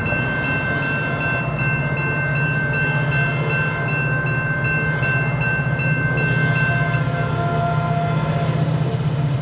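Repeating electronic warning tones, typical of a railroad crossing bell, ringing steadily and stopping about seven seconds in, over the low steady rumble of an approaching SunRail commuter train's diesel locomotive.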